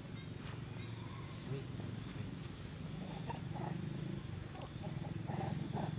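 Outdoor background: a steady low rumble with faint distant voices. A thin, high, steady insect buzz starts about halfway through.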